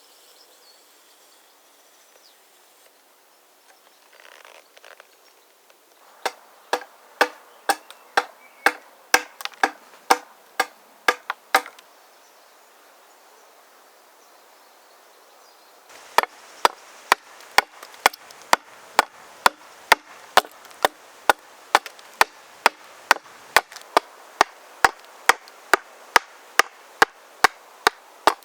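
Axe blows striking wood in a steady rhythm of about two a second. One run of about a dozen strokes is followed by a pause of a few seconds, then a longer run that continues.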